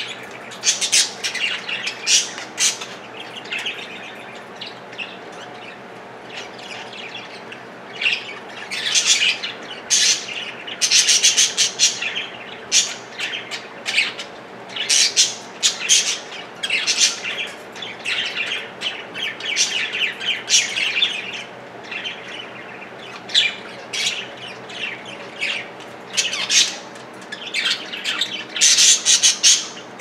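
Several male budgerigars chattering, with sharp chirps and squawks in quick, irregular clusters and a quieter stretch a few seconds in.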